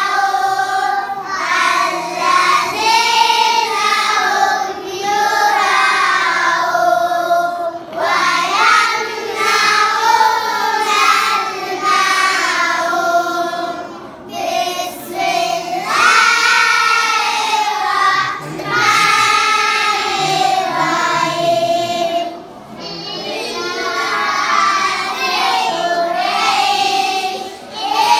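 A class of young schoolchildren singing together in unison, phrase after phrase, with short breaks between verses.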